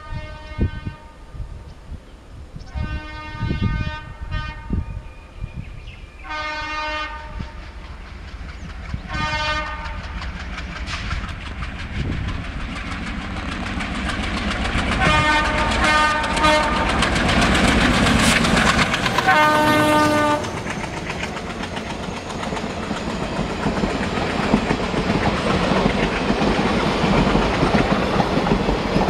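An Indian Railways WDG 3A diesel locomotive sounds its horn in a series of about six blasts as it approaches, the blasts coming closer together and louder. Its engine noise builds and is loudest as it passes about fifteen to twenty seconds in. The passenger coaches behind it then roll by, wheels clattering over the rail joints.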